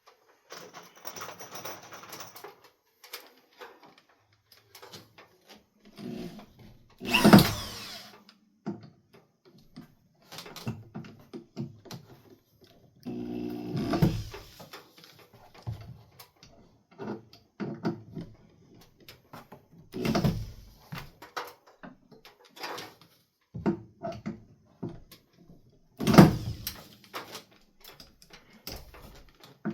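Knocks and clunks of wooden shelf arms and tools being handled and fitted against a wall, with three heavier knocks, and a short whir of a power tool just before the middle.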